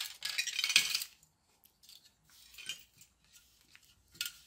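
Light clattering and clicking of hard plastic kit parts being handled: the fan kit's plastic grid base plate is picked up and its AA batteries come out of the battery holder. A dense burst of rattling in the first second, then a few faint clicks.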